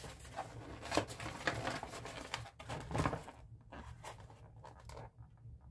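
Plastic food tray and its cardboard sleeve being handled: crinkling and rustling, with a few sharp crackles about one, one and a half, two and a half and three seconds in, then only faint handling.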